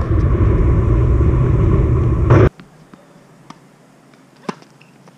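Loud low rumbling noise that cuts off abruptly about two and a half seconds in, then a few light tennis ball bounces and one crisp racket strike on a serve near the end.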